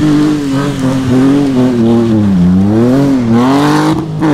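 BMW 1 Series rally car's engine revving hard at full load, its pitch rising and falling as the throttle comes on and off through a gravel corner. A brief break near the end, after which the engine note carries on.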